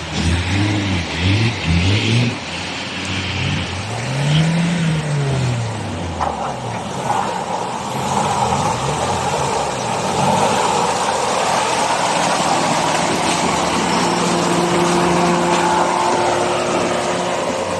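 Off-road 4x4 engine revved in several quick blips and one longer rise and fall in the first few seconds, then running more steadily.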